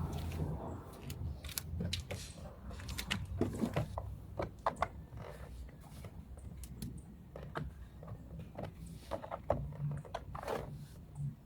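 Irregular clicks, taps and light rattles of hands working on a car's interior door panel, with a low steady hum beneath.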